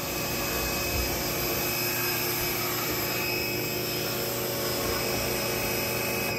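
Electric pressure washer running steadily, its motor and pump humming under the rush of the water jet spraying into the opening of a fuel tank to wash out metal debris.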